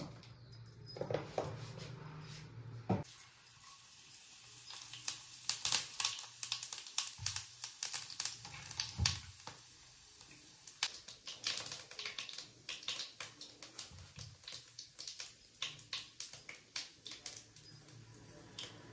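Cumin seeds crackling and spluttering in hot oil in a cast-iron frying pan over a steady sizzle. The popping starts about three seconds in, is thickest a few seconds later, and thins out toward the end.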